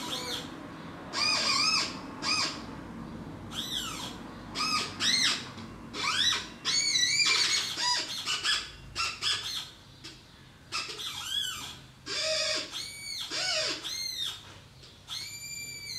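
Paper sound hats playing high chirping tones. Each tone arches up and then back down in pitch and comes in short groups with brief gaps, and a few lower swooping tones come in later on.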